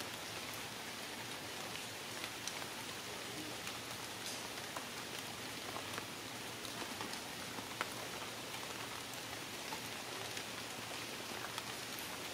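Water drops pattering steadily, with scattered sharper drips: rain falling or dripping through the forest.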